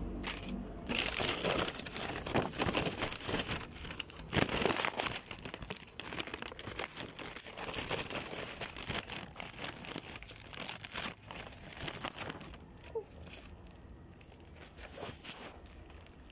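Plastic packaging crinkling as it is handled and unwrapped: dense, irregular crackling for the first twelve seconds or so, then thinning to sparser, quieter crinkles.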